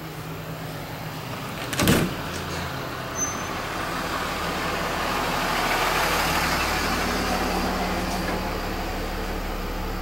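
RV bathroom door opening, with a sharp knock of its latch about two seconds in. It is followed by a rushing noise that builds and fades over several seconds, over a steady low hum.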